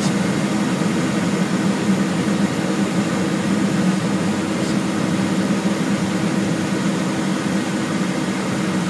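Steady cockpit noise inside a Cessna Citation Excel twin-turbofan business jet on final approach: a constant rush of airflow and engine noise with a steady low hum.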